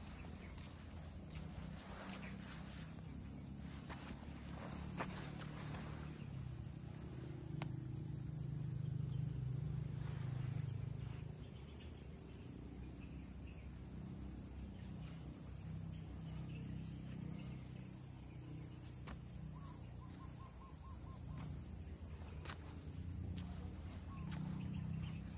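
Outdoor ambience of a steady, high insect chorus with short chirps repeating about once a second, over a low rumble that swells for a few seconds in the middle, with scattered soft footsteps.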